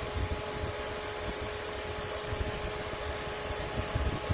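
Ontel Arctic Air Pure Chill evaporative cooler's fan running steadily, an even whirring noise with a faint steady hum, over uneven low rumbling.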